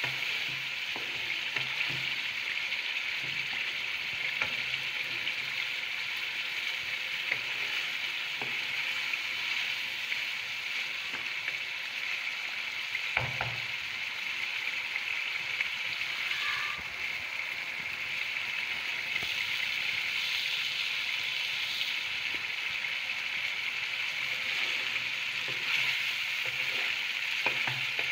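Chicken in a spiced yogurt-and-tomato masala sizzling steadily as it fries in a kadai. A few light knocks of the wooden spatula on the pan, one louder about halfway through.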